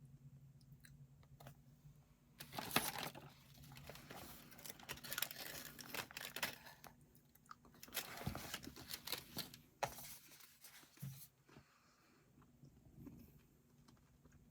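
Rustling and crinkling of something being handled, with many sharp crackles. It starts a couple of seconds in and stops about eleven seconds in.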